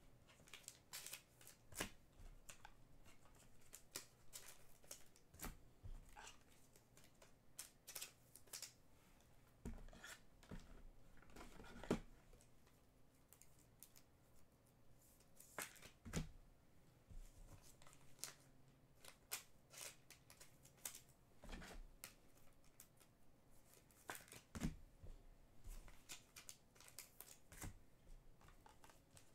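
Faint handling of trading cards and their packaging: irregular rustles, slides and small clicks, with a sharper snap about twelve seconds in.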